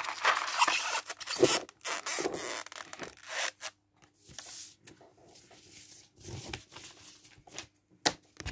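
Rustling and rubbing of packaging as a hand sets a cardboard pack of plastic BBs into a box's foam insert. It is loudest in the first few seconds, then quieter handling follows, with a couple of sharp ticks near the end.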